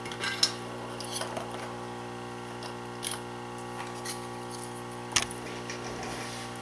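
A steady electrical hum from bench equipment runs throughout. Over it come a few light taps and clicks from small parts and putty being handled on the circuit board, the sharpest about half a second in and about five seconds in.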